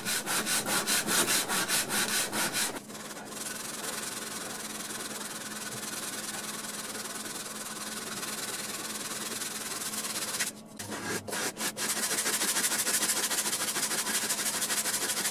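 A metal debit card rubbed by hand on sandpaper to grind down its edge, a rasping of metal on grit in quick back-and-forth strokes. The strokes break off briefly about two-thirds of the way through, then resume.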